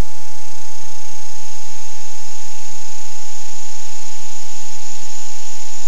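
Steady hiss with a constant mid-pitched tone and a low hum underneath: analog TV recording noise over a blank picture, with no programme sound.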